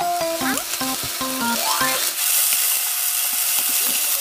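Julienned potato, ham and onion sizzling in an oiled frying pan while being stir-fried with wooden chopsticks. The sizzle grows brighter about halfway through.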